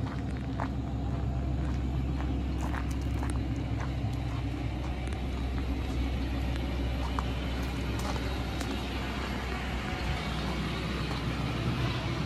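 Ford F550 truck engine idling steadily, with scattered crunching footsteps on gravel.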